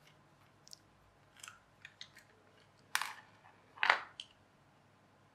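Light plastic clicks and taps as a screwdriver undoes and opens the battery compartment of a small plastic toy train engine. The two sharpest clicks come about three and four seconds in.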